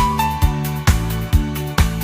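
Cheerful instrumental Christmas music with a steady beat of a little over two beats a second under a bright, sustained melody.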